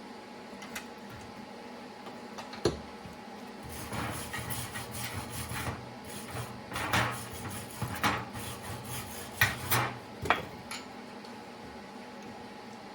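Stick welder arc crackling and sizzling in several short, uneven bursts between about four and ten seconds in, as a nut is welded onto a sheared bolt stub. A sharp click comes just before, over a steady hum.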